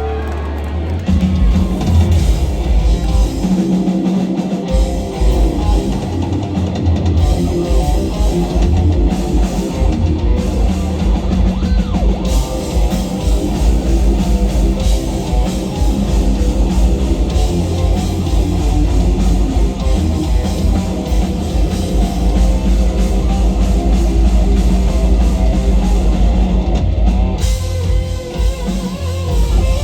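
Live instrumental heavy metal played loud by a full band: distorted electric guitar over a drum kit with heavy kick drum and bass, kicking in about a second in and running dense and steady, with a short thinning near the end.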